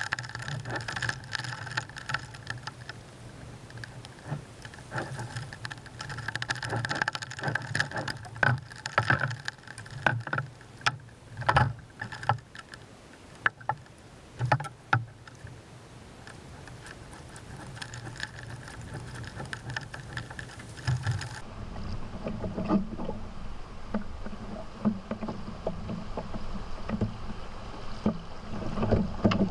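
A canoe being poled along a river: water moving around the hull, with many irregular knocks and clunks, most of them in the first half. After a cut about two thirds of the way through, a louder rushing of rapids builds, with some wind on the microphone.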